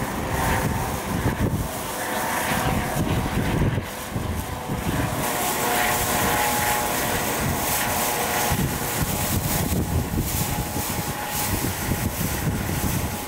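Eurocopter AS365 Dauphin helicopter with a fenestron tail rotor in flight: steady rotor and turbine noise with a thin whine running through it.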